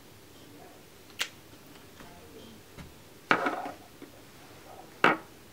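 Small plastic and glass makeup items being handled: a sharp click a little after a second in, a louder brief clatter about three seconds in, and another sharp click near the end, as the liquid lipstick wand goes back into its tube and the tube is set down.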